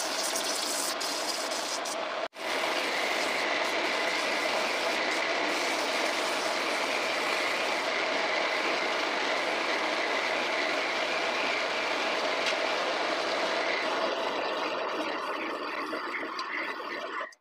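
Wood lathe running while a hand-held chisel cuts into a spinning maçaranduba hardwood blank: a steady scraping rush of wood being shaved over the hum of the lathe. The sound drops out for an instant about two seconds in.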